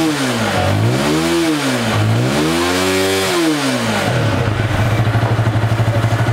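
Unique Tornado 150cc motorcycle's air-cooled single-overhead-cam engine, warmed up, revved hard three times with the throttle, the last rev held longest, then dropping back to a steady idle about four seconds in.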